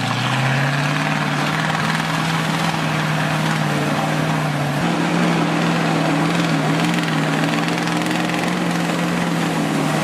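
Heavy truck diesel engine running hard under load, its pitch rising slightly in the first second and then holding steady.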